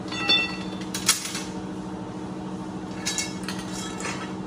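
Metal pieces clinking and tapping: a short ringing clink near the start, a sharp tap about a second in, and a few lighter clinks around three seconds in, over a steady low hum.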